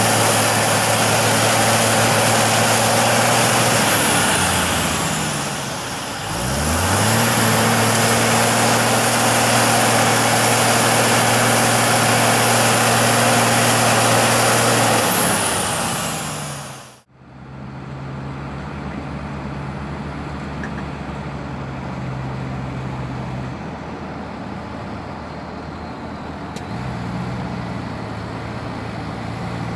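Deutz-Fahr tractor diesel engines running hard at high revs, with a high whine, as a stuck tractor is pulled out of deep mud. The engine speed dips for a couple of seconds about 4 s in and then climbs back. After an abrupt cut about 17 s in, a Deutz-Fahr tractor's diesel runs more quietly and steadily as it drives across the field.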